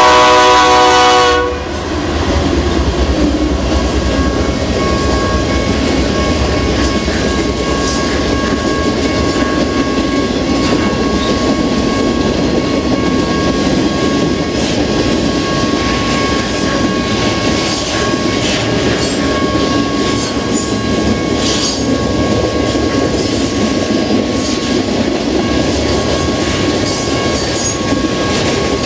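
BNSF GE locomotive's air horn sounding a chord and cutting off about a second and a half in. Then the intermodal train's cars rolling past: a steady rumble of wheels on rail with repeated clicks over the joints and a thin steady tone above it.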